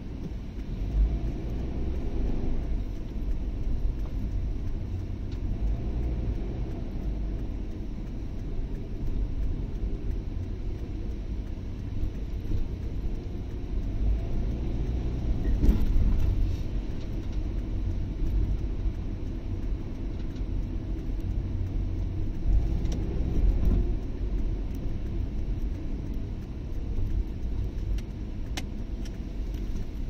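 Steady low rumble of a car's engine and tyres on the road, heard from inside the cabin while driving, with a brief louder swell about halfway through.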